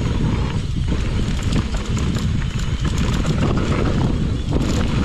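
Mountain bike riding down a rough dirt trail: tyres rumbling over the ground, with a constant rattle and clatter of the bike over bumps.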